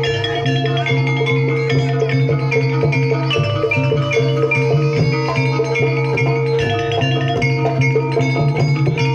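Gamelan music accompanying a jaranan dance, played live: struck metallophones and gongs ringing over drums.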